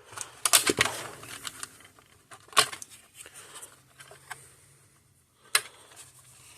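Sharp clicks and light rattling of nylon zip ties and a plastic-cased part being handled and pushed into place. There is a quick cluster of clicks about half a second in, then single sharp clicks at about two and a half seconds and again near the end.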